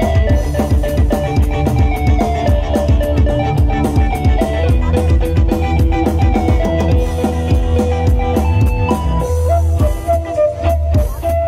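Kecimol, Lombok's street dangdut band music, played loud through a large outdoor sound system: a heavy bass, a busy drum beat and a melody line on top.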